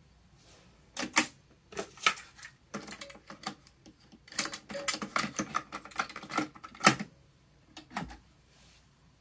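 Akai GXC-725D cassette deck being loaded by hand: a run of plastic clicks and clatters as the cassette is fitted into the deck's door. A sharp snap comes about seven seconds in, as the door shuts. The power switch clicks about a second later.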